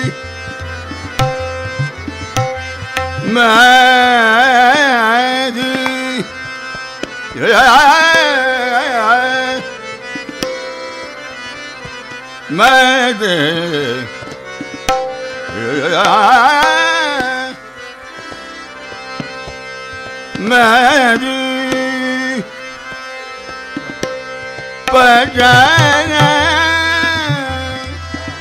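Hindustani classical khayal singing in raga Yaman: a male voice sings six long phrases with sweeping, ornamented glides in pitch, pausing between them. Under the voice run a steady tanpura drone and tabla strokes.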